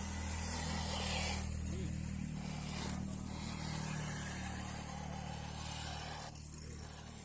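A motor running steadily with a low, even hum, and patches of hiss over it.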